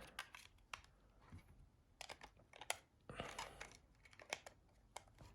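Small plastic clicks and light handling of a Nokia 310 mobile phone as its battery is fitted, with a short rustle or scrape about three seconds in.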